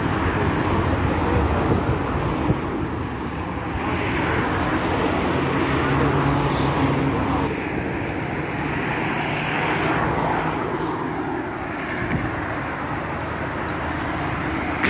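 Road traffic: cars driving past on a city street, their engines and tyres swelling and fading as each goes by, twice more loudly, about four and ten seconds in.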